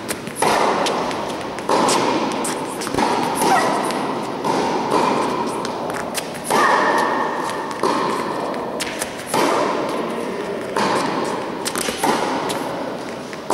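Tennis rally: sharp pops of rackets hitting the ball and the ball bouncing on the court, about one every second and a half, each ringing on in the echo of a large indoor tennis hall.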